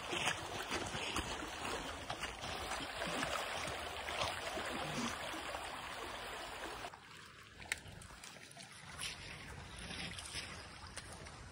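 Floodwater rushing in a swollen creek in flash flood, a steady rush of water noise that drops in level about seven seconds in.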